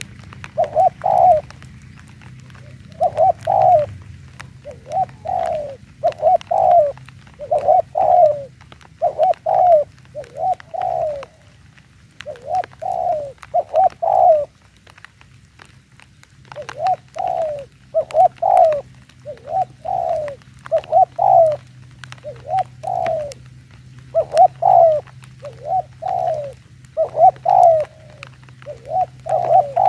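Spotted doves cooing: low coo phrases of two or three notes repeated about once a second, with a pause of about two seconds just past the middle.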